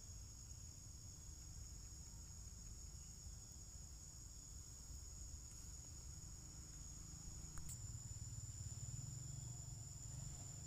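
Faint, steady, high-pitched insect drone from the trees, with a low rumble underneath that swells for a couple of seconds near the end and a single brief click about two-thirds of the way through.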